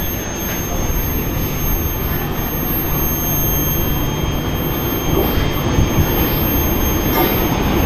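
WAP4 electric locomotive hauling an express train, approaching along the platform: a steady rumble and hiss that grows a little louder from about five seconds in.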